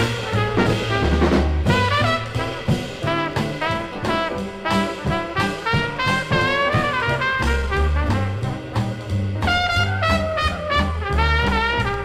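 Swing jazz playing from a vinyl LP on a turntable: a horn section plays a harmonised line over bass and drums.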